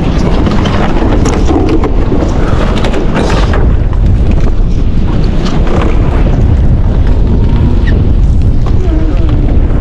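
Heavy wind buffeting the microphone in a loud, steady rumble, with a few brief knocks and rattles as the net is hauled over the boat's side.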